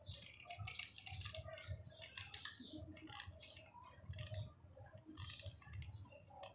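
Faint, irregular clicking and crackling from a hot glue gun being pressed and worked against corrugated cardboard, in short clusters of clicks.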